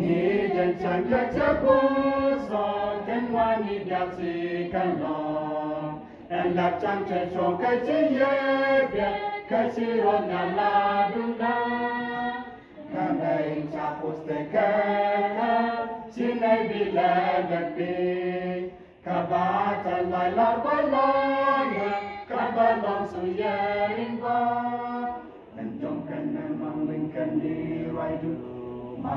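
Small robed choir singing a gospel hymn a cappella in harmony, in phrases of about six seconds with brief breaks between them.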